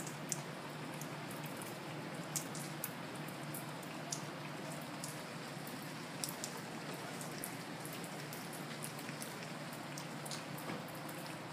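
Rain falling: a steady hiss with scattered sharp ticks of drops landing close by.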